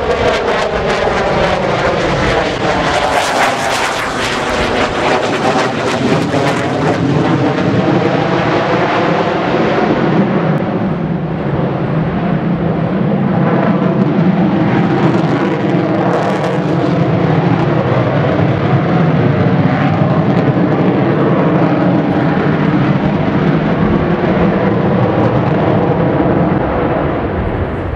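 Twin F119 turbofan engines of an F-22 Raptor flying a display overhead: a loud jet roar with a sweeping, phasing shift in pitch over the first few seconds, then steadier.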